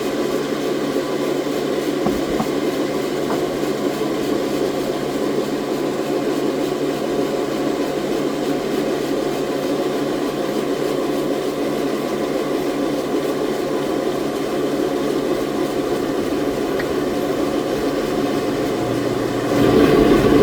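Sawmill machinery running with a steady mechanical drone, growing louder about a second before the end.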